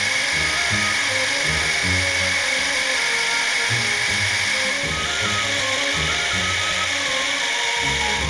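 Background music with a stepping bass line, over a steady high whine and hiss.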